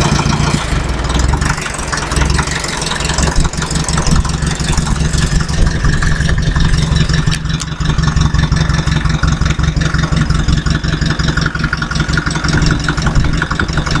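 Fiat 352C crawler tractor's diesel engine idling steadily, a fast, even clatter that holds at one speed.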